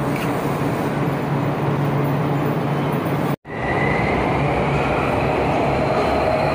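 Electric metro train on an elevated line, built by Hyundai Rotem: a steady rumble and hum that cuts off suddenly about halfway through, then resumes as the train runs with a faint high whine.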